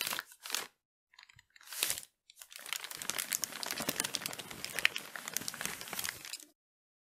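Crinkling, crackling paper noise: a few short strokes, another about two seconds in, then about four seconds of continuous crackling that stops abruptly.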